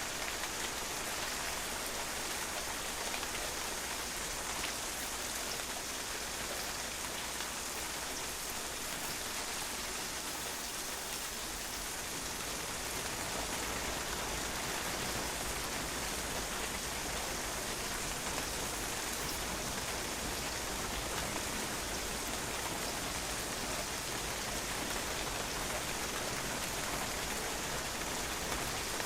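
Steady rain falling and pattering on a patio, a continuous even hiss of drops without pause.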